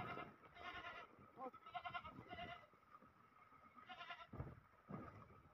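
Goats bleating, about five short bleats spread over a few seconds.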